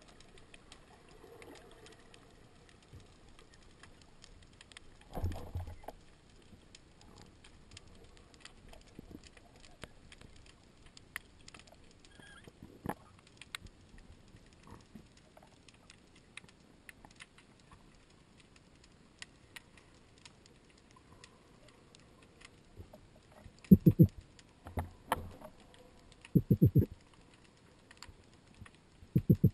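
Underwater sound picked up by a camera in its housing: faint, scattered clicks and crackling, broken by a burst of dull low knocks about five seconds in and several louder clusters of rapid knocks near the end.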